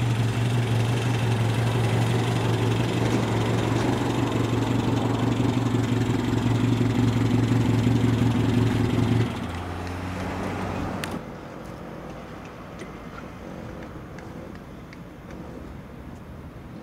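A 1954 Simca 9 Aronde's four-cylinder engine runs steadily while the car stands still, then drops away about nine seconds in. A single click comes a little later, and only a quieter background is left.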